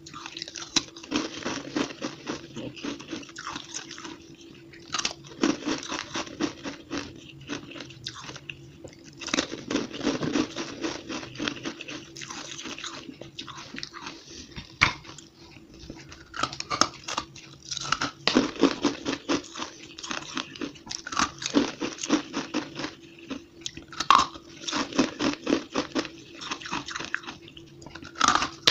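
A person biting into and chewing chunks of fluffy, snow-like frozen ice, giving repeated bursts of rapid crisp crunches. The audio is sped up to double speed.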